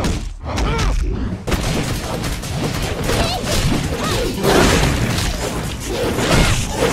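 Fight-scene soundtrack from an animated fight: a dense run of rapid hits and blasts over music.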